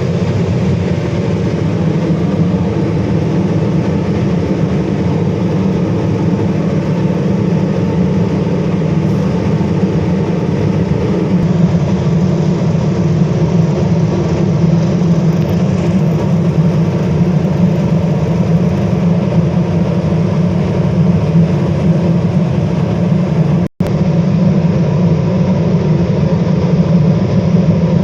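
LPG-fired melting-furnace burner running: a loud, steady rumbling roar with a deep low hum, broken by a momentary dropout about 24 seconds in.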